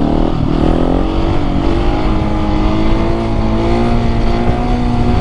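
Husqvarna 701 Supermoto's single-cylinder engine under throttle: the revs dip and pick back up in the first second, then climb slowly and steadily as the bike pulls in gear.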